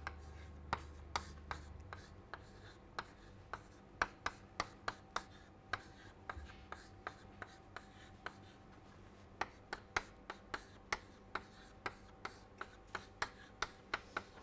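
Chalk writing on a blackboard: a long irregular string of sharp taps and short scrapes as the chalk strikes and strokes the board, with a brief pause partway through.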